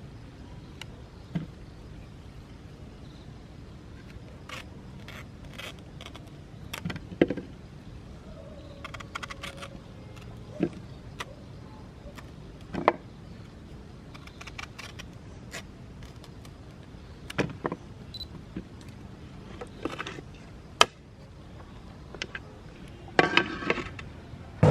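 Scattered clicks, taps and light knocks of objects being handled, a dozen or so spread irregularly, with a short faint hum about nine seconds in and a quick cluster of clatter near the end.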